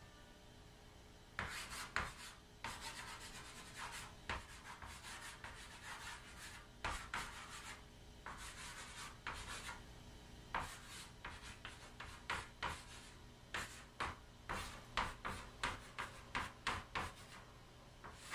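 Chalk writing on a chalkboard: scratchy strokes with sharp taps as letters are formed. It starts about a second and a half in and turns into a quick run of short strokes in the second half.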